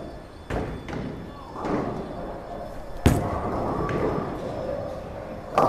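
A bowling ball is released and lands on the wooden lane with a sharp thud about three seconds in, then rolls down the lane with a steady rumble. Near the end it crashes into the pins.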